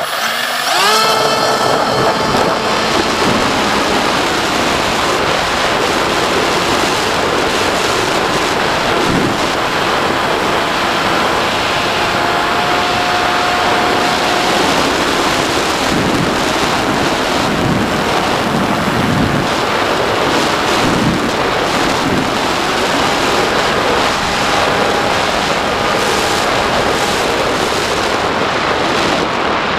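Model airplane's electric motor and propeller, heard from a camera on the plane. The motor rises in pitch at the very start as the plane takes off, then runs steadily under heavy wind rush on the microphone.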